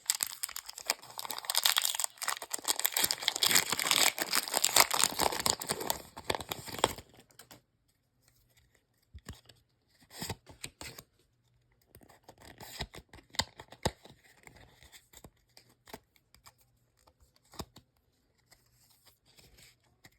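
Foil booster pack wrapper of a Pokémon trading card pack crinkling and tearing open for about seven seconds, then quieter scattered rustles and clicks as the cards are handled.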